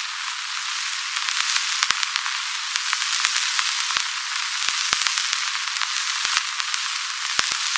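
Old film soundtrack noise: a steady high hiss with irregular crackles and pops scattered through it, the surface noise of a worn, scratched film print.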